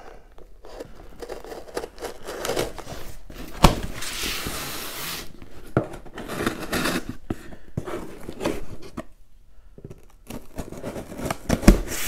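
A folding knife slitting the packing tape and cardboard seams of a long shipping box, with the cardboard flaps rustling and scraping as they are pulled apart. A longer continuous slitting stretch comes about four seconds in, just after a sharp knock.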